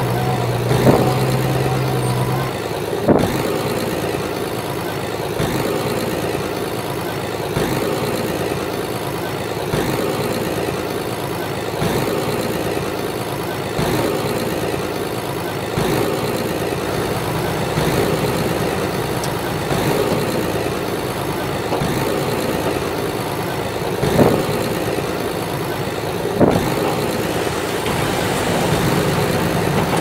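Komatsu crawler bulldozer's diesel engine running steadily while working, with a few sharp clanks along the way.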